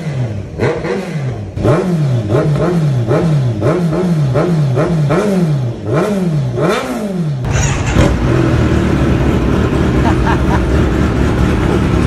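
Kawasaki Z900 inline-four revved hard through an aftermarket exhaust in about ten quick throttle blips, each climbing and dropping straight back. About seven and a half seconds in it switches abruptly to a deeper, steady, loud exhaust rumble from a different exhaust.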